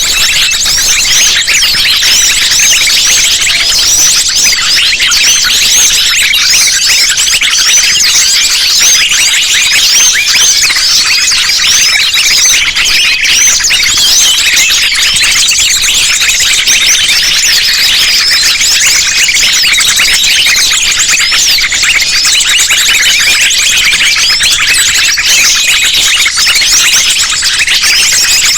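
Dense, loud chorus of many small songbirds layered together, a steady mass of shrill high chirps, twitters and fast trills. It is a bird-luring recording of sunbirds and other small birds calling all at once.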